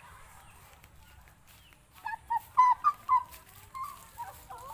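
A bird calling: a quick run of short, loud chirping notes starting about two seconds in, then a few softer notes that drop in pitch near the end.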